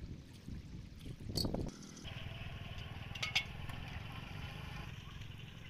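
Shallow water splashing as hands work through a flooded rice paddy picking snails, with one splash about a second and a half in and a couple of sharp clicks a little after three seconds, over a low rumble.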